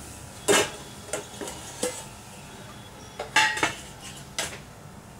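Steel kitchenware clinking as a wire spider skimmer is handled against a steel kadai and vessel: a series of sharp metal clinks and knocks, the loudest about half a second in, then a quick run of three a little over three seconds in.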